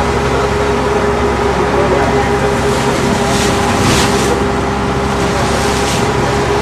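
Passenger ferry boat's engine droning steadily under a constant rush of water and wind, with two brief louder swishes about three and a half and four seconds in.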